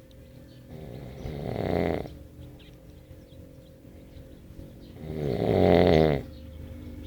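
Snoring in long, heavy breaths: two snores about four seconds apart, each growing louder for about a second and then cutting off sharply.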